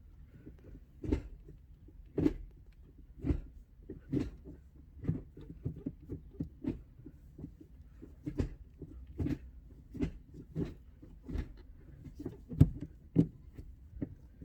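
Gear lever of a six-speed manual gearbox being worked through the gates with the clutch pressed, just after a short shifter was fitted to the selector: a series of short clunks and clicks, roughly one a second.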